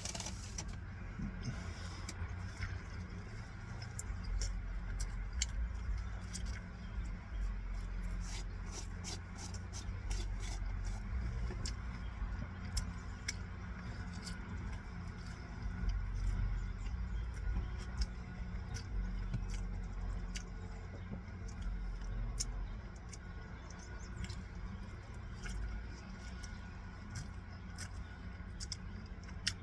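A steady low rumble with many small sharp clicks and taps scattered through it.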